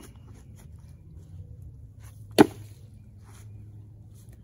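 A single sharp, loud knock about two and a half seconds in, over a low steady background.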